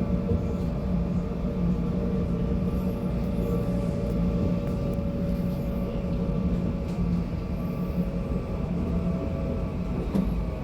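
Série 8500 electric multiple unit running between stations, heard from on board: a steady low rumble of wheels on rail under a steady whine of several tones from the electric traction equipment.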